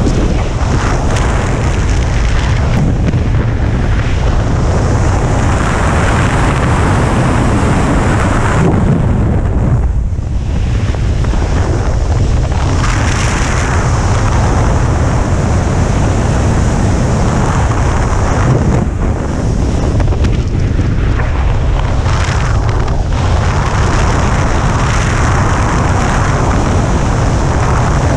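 Steady rush of wind buffeting an action camera's microphone from the airflow of fast speedflying flight, easing briefly a few times.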